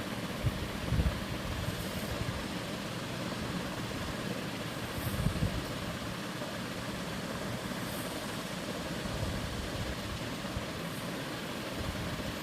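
Banana bonda fritters deep-frying in hot oil, a steady sizzle, with a few soft low knocks, about half a second, a second and five seconds in.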